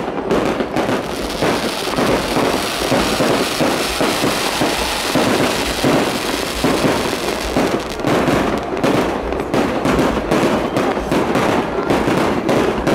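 Fireworks display: a dense, nearly continuous barrage of aerial shell bursts and crackling. The cracks run together in the middle and come as more distinct separate bangs again from about eight seconds in.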